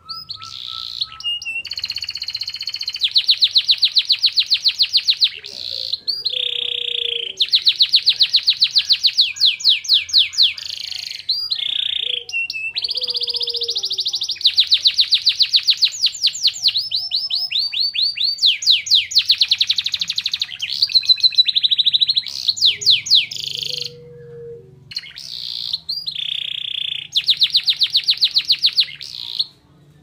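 Domestic canary singing: fast trilled phrases, each lasting a few seconds, broken by short pauses. The song carries borrowed phrases of the oriental white-eye (pleci).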